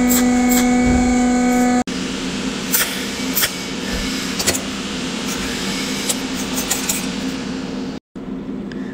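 Cold welding machine's pulsed arc ticking in regular sharp clicks over a steady electrical hum as the torch welds thin metal strips. About two seconds in, the sound changes to a fainter hum with irregular clicks, with a brief dropout near the end.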